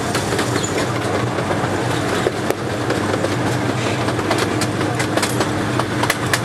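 A moving vehicle heard from on board: a steady rumble and hum with irregular sharp clicks and rattles.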